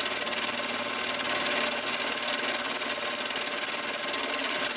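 Mini lathe running while a turning tool cuts a spinning brass rod: a steady motor hum under a dense, high scraping hiss of the cut, with the brass breaking into fine chips. The cutting hiss drops out briefly twice, about a second in and again near the end.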